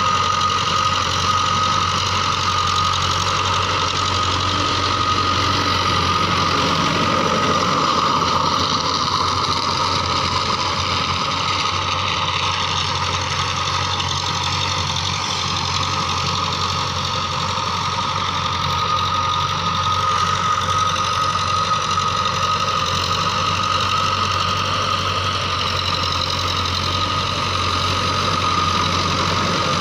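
Diesel engine of a TAFE farm tractor running steadily under load while it pulls a rotary tiller through dry field soil, with a steady high whine over the engine sound.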